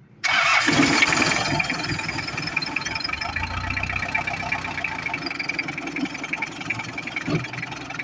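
A four-cylinder diesel engine, its glow plugs all working again, fires up almost at once and settles into a steady idle. The quick start shows the hard starting from the two dead glow plugs is cured.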